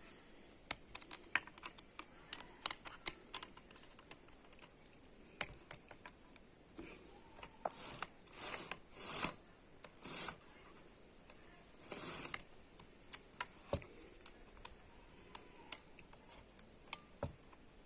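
Small metal clicks and taps from handling the chainsaw adapter's bar, chain and bolts while the chain is being tightened, with a few short scrapes in the middle.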